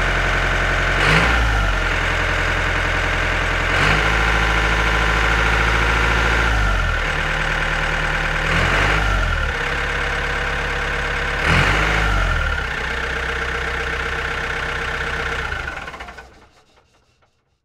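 Tractor engine sound effect: a running engine whose note shifts every few seconds, briefly rising and dropping as if revving or changing gear. It fades out near the end.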